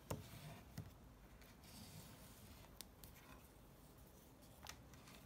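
Near silence broken by a few faint clicks and knocks of an Olympus Trip AF 51 compact film camera being handled and set down on a table. The sharpest click comes right at the start, another just under a second in, and a fainter one near the end.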